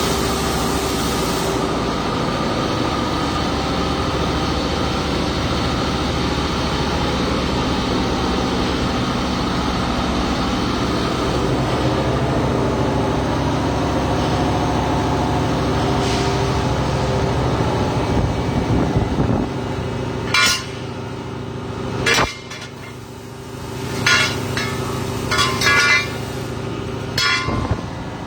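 Cobot MIG welding run: a steady, continuous welding noise that stops about two-thirds of the way through, followed by several short, sharp bursts.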